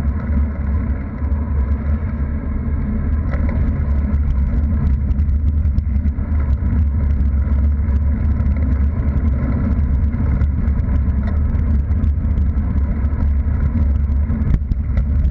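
Steady low wind rumble buffeting a bicycle-mounted camera's microphone while riding, mixed with tyre and road noise and faint scattered ticks.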